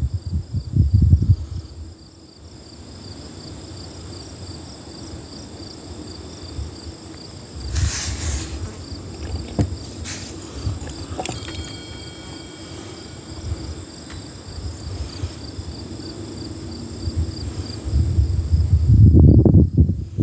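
Insects chirping in a steady, pulsing trill. Low rumbling on the microphone comes at the start and again near the end, and a brief noise about eight seconds in.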